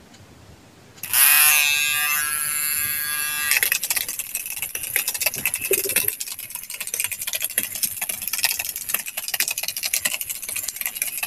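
A small DC motor on a homemade wire-legged spider robot starts about a second in with a buzzing whine. From about three and a half seconds in, the robot's wire legs clatter rapidly against the concrete floor while the motor keeps buzzing.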